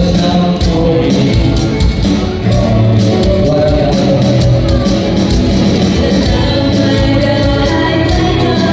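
Loud music with a singing voice over a steady beat.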